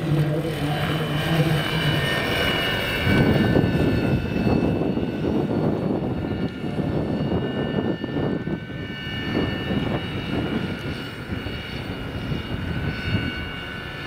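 Vario Schweizer 300C large-scale electric model helicopter with a Kontronik electric drive, flying past: a steady high whine from the motor and drivetrain over the rush of the rotor. It grows fainter over the last few seconds as it flies away.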